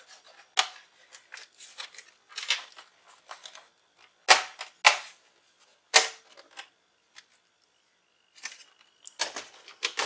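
Plastic laptop bottom cover being pressed onto the base, giving a series of sharp clicks as its clips snap into place, with soft handling rustle between. The two loudest clicks come about half a second apart, a little before midway.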